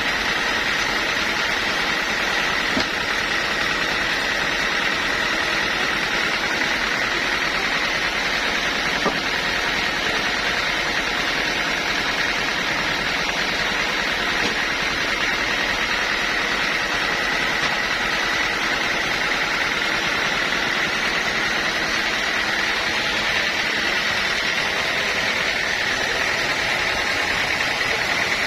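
Sawmill machinery running steadily: a constant mechanical noise with a high, even whine and no pauses.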